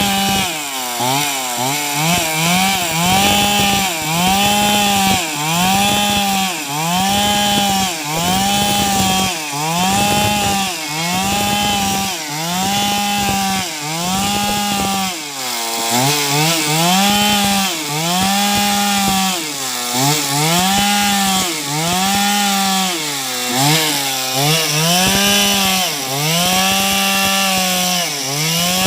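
Chainsaw cutting wood. Its engine pitch sags under load and picks back up over and over, about once every second and a half.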